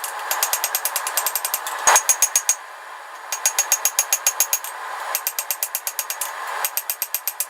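Hammer striking hot steel on an anvil in a fast, even run of ringing blows, about five or six a second, as an old file is forged and drawn out into a fire steel. The hammering stops briefly a little before the middle.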